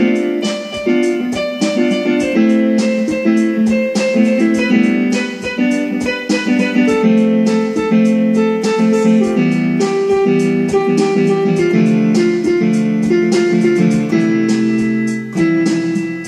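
Background music led by plucked guitar, with a steady rhythm of picked notes.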